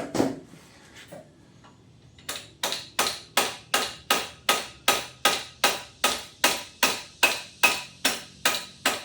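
Plastic-and-rubber-faced hammer tapping repeatedly on a Kawasaki HD3 motorcycle's top yoke to knock it free. The blows come at about two and a half a second, starting a couple of seconds in, after a single knock right at the start.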